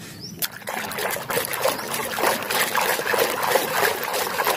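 Muddy water splashing and sloshing in a basin as a hand scrubs a small toy cement mixer truck in it. After a single click about half a second in, the splashing starts and goes on, irregular and busy.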